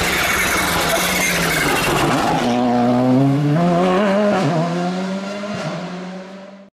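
VW Polo R5 rally car's turbocharged four-cylinder engine at racing speed: first a loud passing wash of engine and road noise, then the engine note rising in pitch as it accelerates hard, with two brief breaks like gear changes. It cuts off suddenly near the end.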